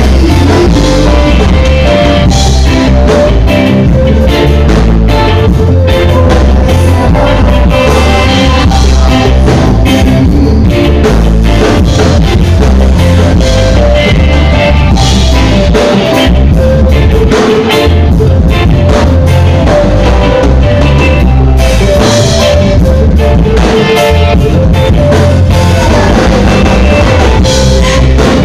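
Live band playing loud, with electric guitar, bass, keyboards and a drum kit keeping a steady beat, and a male singer on a microphone.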